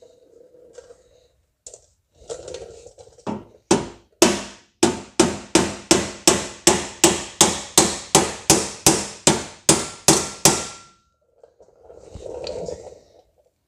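Body hammer striking the steel seam of a replacement quarter panel, about twenty quick ringing blows at roughly three a second, beating the seam down so the panel sits flush. Softer rustling handling noise comes before and after the blows.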